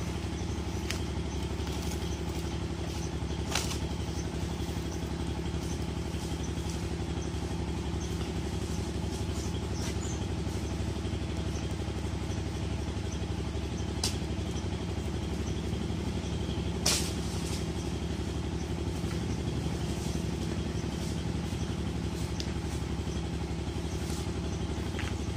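An engine running steadily at a constant idle, with a few sharp clicks or snaps over it.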